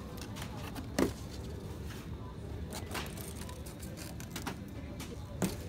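Large plastic soda bottles being handled and set into a plastic shopping trolley: a sharp knock about a second in, light clicks and rustles, and another knock near the end, over a steady low background hum.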